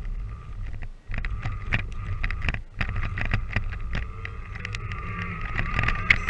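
Electric motor and drivetrain of a Danchee RidgeRock RC truck whining as it drives through snow, heard from a camera on the truck itself. Many sharp clicks and knocks come from the tyres and chassis. There is a brief drop about a second in, and the whine climbs a little in pitch near the end.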